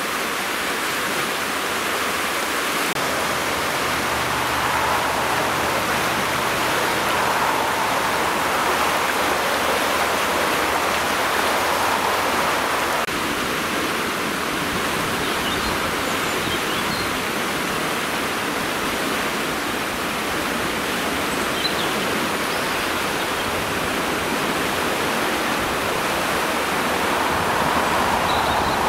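A river in spate after heavy overnight rain: fast, brown floodwater rushing and churning with a steady, unbroken noise.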